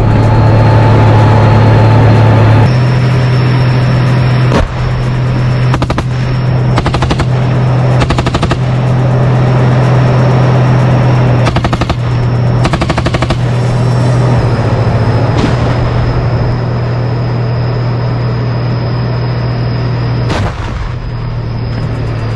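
Tank engine running with a steady low drone and a high whine, while rapid gunfire comes in short bursts several times. A single heavier shot comes near the end.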